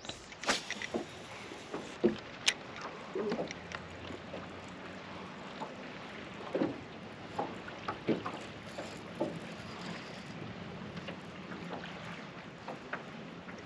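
Small fishing boat under way: scattered light knocks and clicks over a faint steady hum and water noise.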